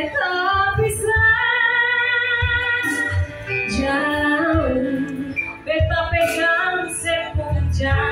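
A woman singing an Ambonese pop song into a handheld microphone, holding long notes over musical accompaniment.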